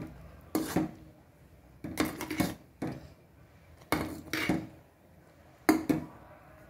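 A steel spoon stirring thick oat porridge in an aluminium pot, scraping and knocking against the pot in five short bursts, one every second or so.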